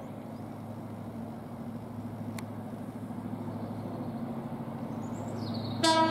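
Diesel engine of a Class 43 HST power car running with a steady low drone, growing slowly louder as the train approaches. Near the end a loud horn starts to sound.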